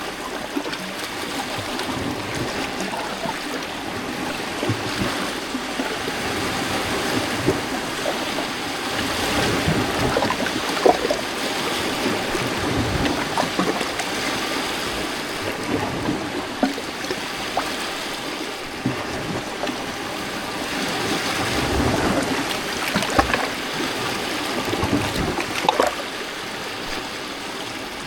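Small lake waves lapping on a rocky shoreline: a continuous wash of water with frequent small, sharp splashes among the rocks, swelling a little louder now and then.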